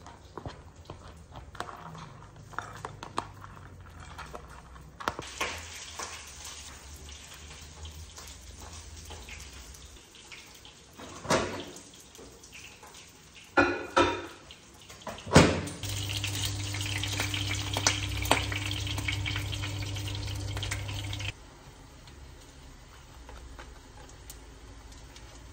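Kitchen handling sounds: light clicks and scrapes of utensils against dishes, a few sharp knocks past the middle, then a kitchen tap running steadily for about five seconds before it is shut off abruptly.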